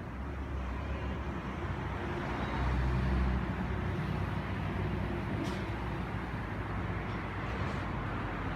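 Road traffic noise: a steady wash of sound with a low rumble that swells about three seconds in, as vehicles pass.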